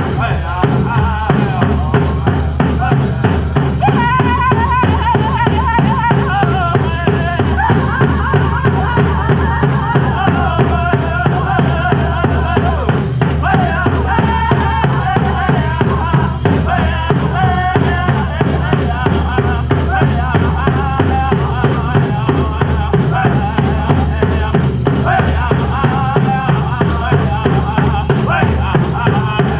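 Powwow drum group singing a chicken dance song: several men singing together over a big drum struck in a fast, steady beat.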